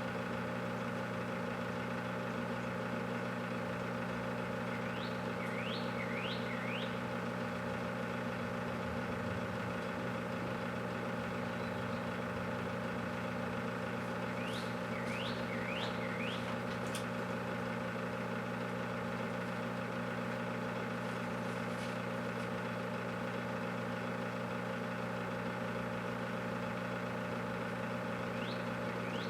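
Large microwave oven running steadily with a watermelon heating inside: a constant electrical hum with a fan drone. Short groups of high chirps, three or four quick downward sweeps each, come a few seconds in, again mid-way, and once near the end.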